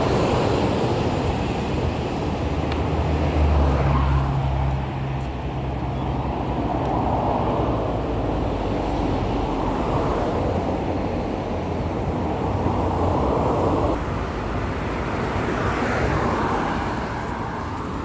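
Expressway traffic: cars passing one after another, the noise swelling and fading every few seconds, with a deeper rumble about three to five seconds in.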